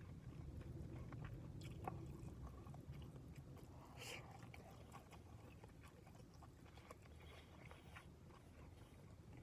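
Faint chewing and small clicks of eating a beef-bowl bento, with a brief rustle or slurp about four seconds in, over a steady low hum.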